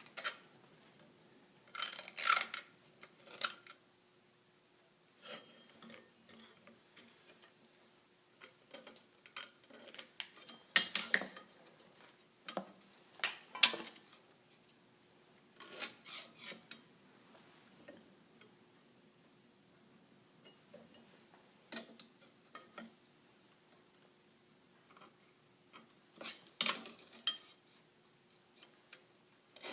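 Scattered clinks and clanks of steel parts and hand tools being handled and set down, with quiet gaps between; a faint steady hum underneath.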